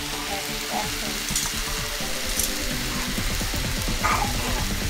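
Thinly sliced ribeye steak sizzling steadily as it fries in a hot nonstick pan.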